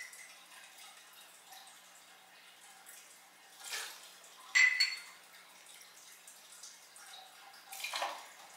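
Gin poured from its bottle into a jigger and into a cocktail shaker: faint trickling and splashing of liquid, with a short, ringing clink about halfway through.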